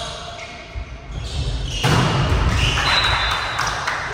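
Volleyball rally in an echoing sports hall: the ball struck by hands and thudding, with a sudden loud hit about two seconds in followed by players' calls.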